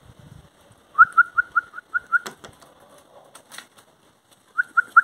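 A person making quick squeaky kissing calls to call a dog over: a run of about eight short, slightly rising chirps at about five a second, then a shorter run of three near the end, with a couple of sharp clicks in between.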